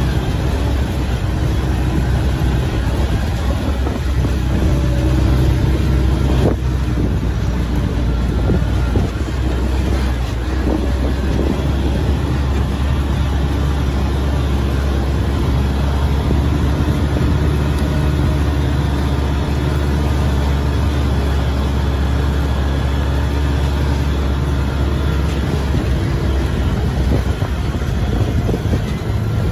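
ATV engine running steadily while the ATV is ridden across a mowed field, a constant low hum with no revving.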